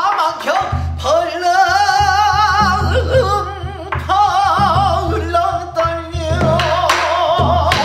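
Male pansori singer singing a passage solo in the traditional style, his voice sliding and wavering with wide vibrato on long held notes. A buk barrel drum marks the rhythm with a few strokes.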